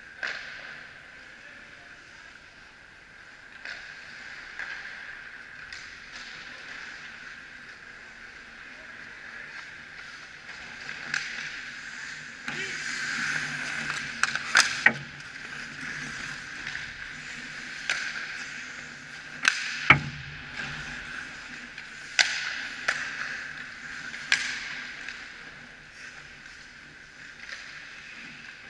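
Ice hockey play: skate blades scraping and carving on the ice, with sharp clacks of sticks and puck. The scraping and clacking grow louder when players crowd the net about halfway through, and a heavier knock follows a few seconds later.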